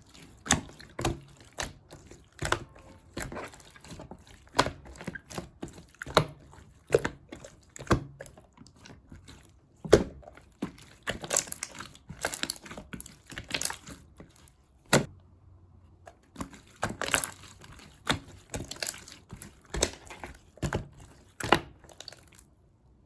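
Clear slime being squished and pressed by hand, making irregular sharp clicks and pops with soft crackling in between. There is a short pause about fifteen seconds in, and the sound stops shortly before the end.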